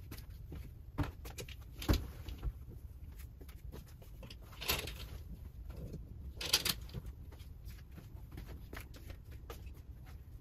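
Quiet hotel-room ambience: a steady low rumble with scattered light clicks and two short rustling noises, one about halfway through and one a couple of seconds later.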